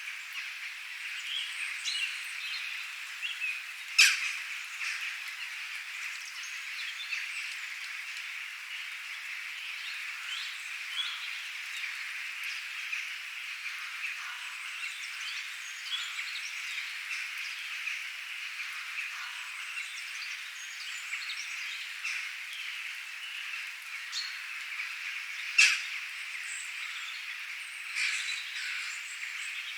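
Birds chirping and calling in many short notes over a steady, high background chorus. Two sharp, loud clicks stand out, one about four seconds in and one late on.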